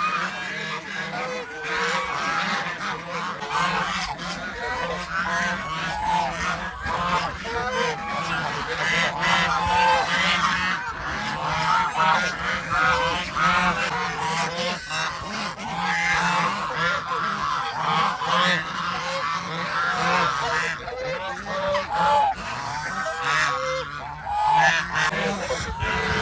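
A flock of domestic geese honking continuously, many short calls overlapping one another, over a steady low hum.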